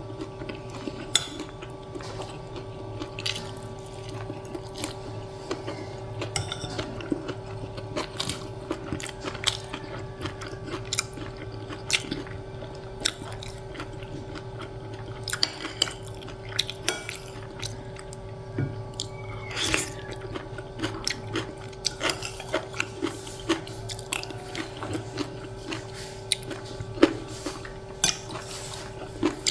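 A person chewing and biting food close to the microphone, with frequent short clicks and crunches over a steady low hum.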